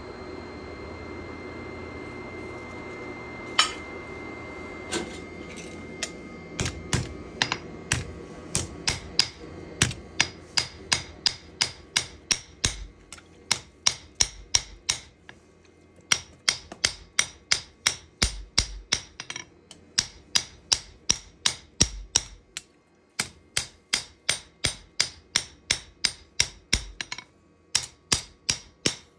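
Hammer blows on the steel of a knife blade being forged, each with a short metallic ring. Two single strikes come over a steady hum; then the hammering settles into a rhythm of about two to three blows a second, with a few brief pauses.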